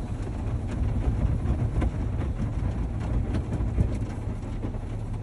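Automatic tunnel car wash heard from inside the car: a steady low rumble of the wash machinery and spraying water, with scattered light slaps and knocks as the hanging cloth wash strips sweep across the windshield and body.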